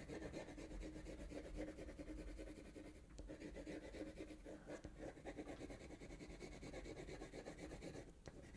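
Faint, quick back-and-forth strokes of a coloured pencil on paper: a light purple pencil laid over blue to burnish and blend the colours.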